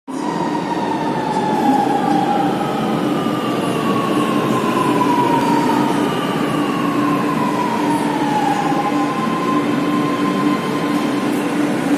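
Lucknow Metro train pulling in alongside the platform: steady rumble of wheels on the rails, with the electric drive's whine falling slowly in pitch as the train slows.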